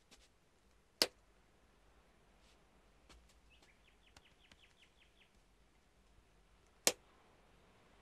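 Two sharp clicks or knocks about six seconds apart, with a quick run of faint high chirps between them over a low background hiss.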